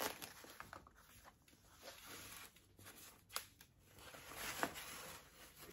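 Faint rustling and a few scattered light clicks as ribbon is wrapped around a foam cooler packed with crinkly chip bags and cans.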